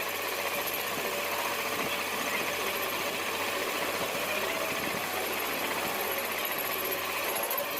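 Metalworking machine running steadily, with no change in level.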